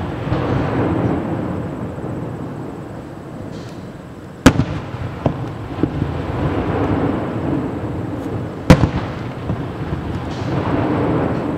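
Aerial fireworks shells bursting: two sharp, loud bangs about four seconds apart, a few smaller pops, and a long rolling rumble between them.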